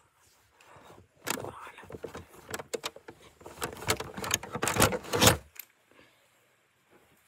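Handling noise: a run of knocks and rattles as the phone and the Lego build are carried along. It stops suddenly about five and a half seconds in.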